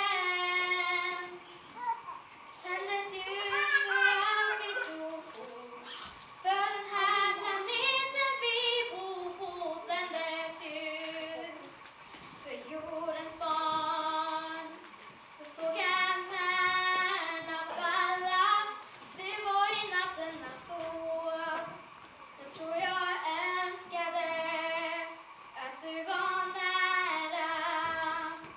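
A young woman singing a Swedish Lucia song unaccompanied, in phrases of about two seconds with a wavering vibrato and short breaths between them.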